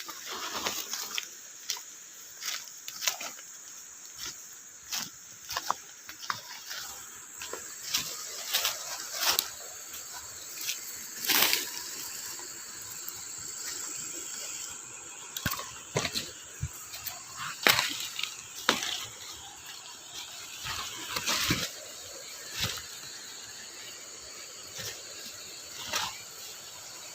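Irregular splashes and sloshing of water, some short and sharp, a few longer swishes, over a steady background hiss.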